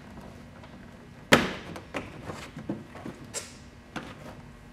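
A VW Golf R32's plastic C-pillar trim being pried and pulled loose by hand. There is a sharp snap about a second in, then smaller clicks and knocks, and another sharp snap a little past halfway.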